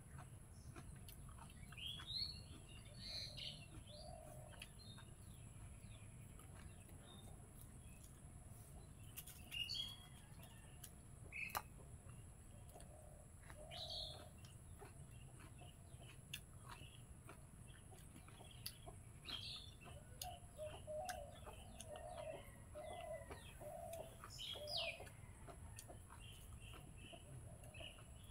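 Faint birds chirping in short scattered calls, with a chicken giving a run of short low clucks about two-thirds of the way through, over a steady high thin hiss.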